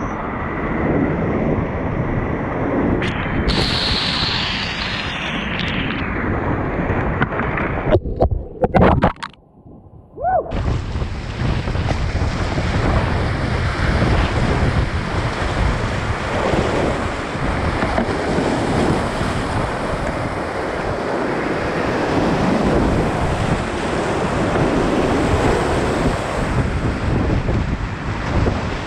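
Loud, continuous rushing of a flooded mountain river's whitewater around a kayak, with wind buffeting the microphone. About eight seconds in, the sound suddenly goes muffled and drops away for about two seconds, then the rushing returns.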